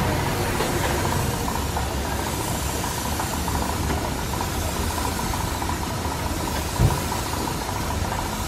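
Gravity-feed compressed-air spray gun spraying a second coat of car paint, with a steady hiss over a motor running under it. A short thump comes late on.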